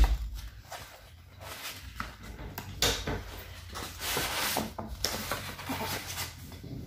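Paper rustling as a large picture book's page is turned by hand, the book shifting on the table, in a few short bursts about three to five seconds in.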